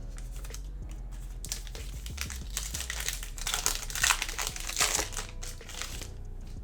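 Trading-card pack wrapper crinkling as it is handled and opened, a dense stretch of crackling from about a second and a half in until near the end.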